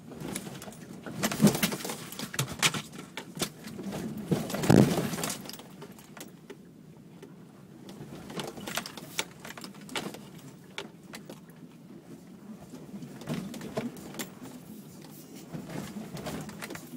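Jangling, rattling and knocking inside a vehicle's cabin as it jolts slowly down a rough dirt trail, with the hardest knocks about a second and a half and nearly five seconds in.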